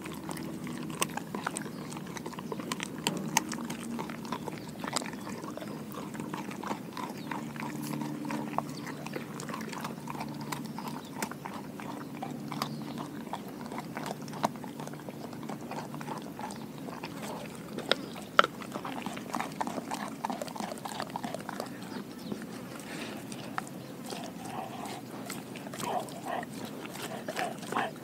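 Doberman chewing a raw pig ear up close: wet gnawing with many irregular sharp clicks and crunches of teeth on cartilage. A low steady hum underlies the first half and fades out.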